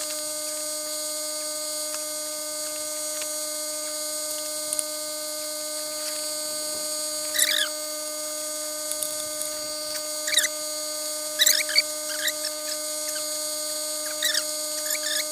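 Generator running in the background, heard as a steady high-pitched squeal from footage played at ten times speed. A few brief squeaky chirps break through it.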